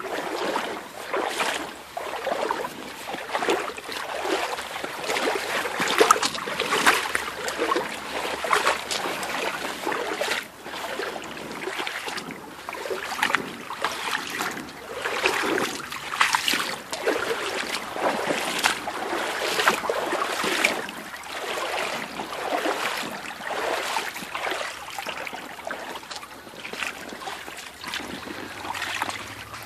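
Boots wading through a shallow creek, water splashing and sloshing with each step, a little over once a second.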